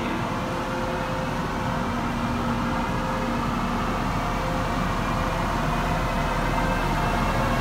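Trenitalia E.402B electric locomotive hauling a passenger train slowly into the platform, a steady running noise with a faint on-and-off hum, growing slightly louder as it approaches.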